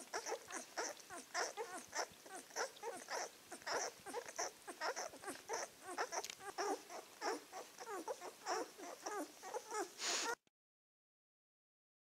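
A litter of nine-day-old Czechoslovakian wolfdog puppies nursing: small squeaks, whimpers and suckling sounds in a quick rhythm of about three a second. The sound cuts off suddenly near the end.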